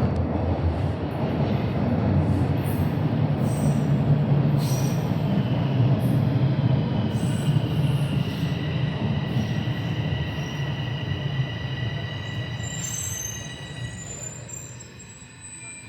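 A light rail or subway train running on its rails with a heavy rumble. From about halfway, steady high-pitched wheel squeal comes in. The running noise dies down toward the end.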